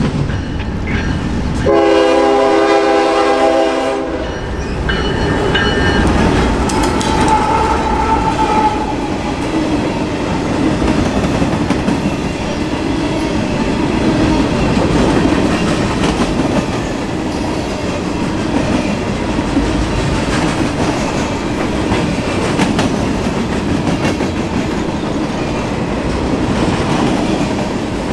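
Freight cars rolling past close by, a steady rumble and wheel clatter over the rails. A locomotive horn sounds a chord about two seconds in and lasts about two seconds.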